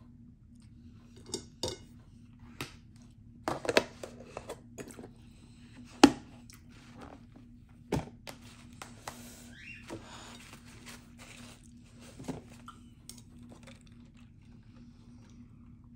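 Dishes and plastic food containers being handled on a table: scattered clicks, knocks and clatter, the sharpest knock about six seconds in, over a faint steady hum.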